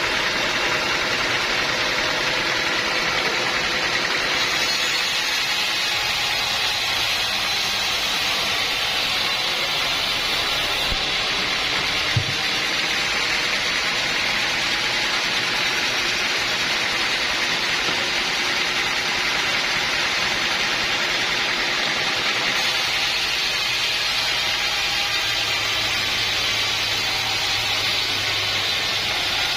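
Portable sawmill running steadily, its engine and blade making an even, unbroken hiss-like drone, with one short knock about twelve seconds in.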